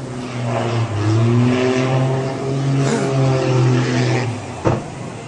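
Small aircraft's engine running loud in a steep dive, its pitch wavering and rising, then cutting out about four and a half seconds in, followed by one sharp bang as the plane hits the sea.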